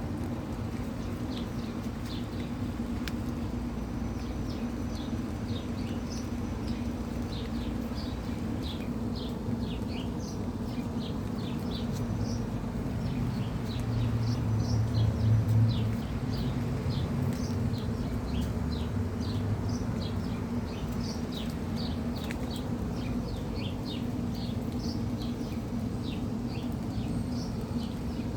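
Many small birds chirping, short quick calls scattered throughout over a steady low background hum. About halfway through, the low rumble of a passing vehicle swells and fades.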